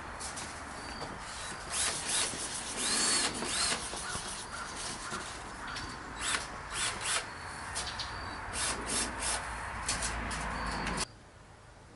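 A handheld power drill run in a series of short bursts while he works on a wire cage trap. The sound drops off sharply near the end.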